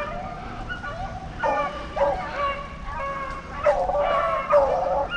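A pack of rabbit hounds baying in overlapping chorus, the repeated calls of dogs running a rabbit's trail.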